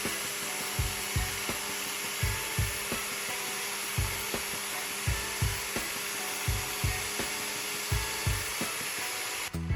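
A power tool running steadily with an even hissing, grinding noise over background music with a regular low drum beat; the tool noise cuts off abruptly near the end.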